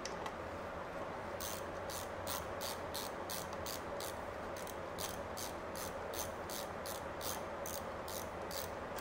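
Hand ratchet clicking in short, evenly spaced bursts, about three a second, starting about a second and a half in, as it runs the scooter's gearbox oil-fill plug back in after the oil is added.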